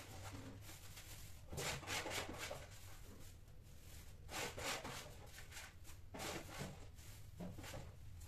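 Two mating cats scuffing against each other and the tiled floor: about four short, scratchy rasps of fur and claws.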